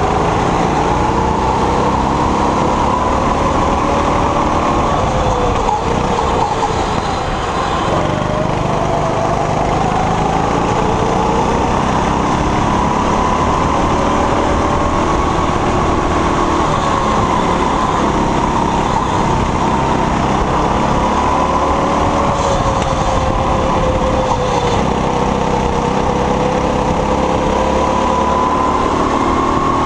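Go-kart engine running at speed, heard from on board the kart. Its pitch rises and falls slowly as the throttle is worked through the corners.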